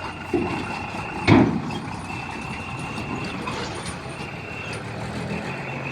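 A truck's reversing alarm sounding long high beeps, each about a second long with short gaps, over the noise of idling vehicles. A loud thump about a second in.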